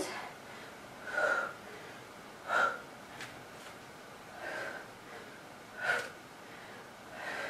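A woman's heavy breathing while doing push-ups: five short, forceful exhalations spaced about a second and a half apart, the breathing of hard exertion.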